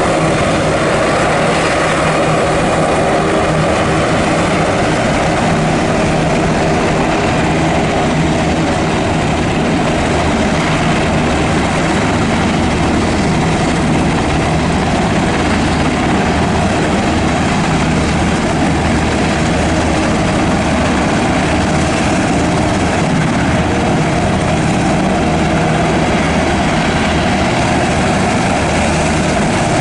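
Black Hawk helicopter running on the ground with its twin turboshaft engines and rotors turning, a loud, steady turbine and rotor noise that stays constant throughout.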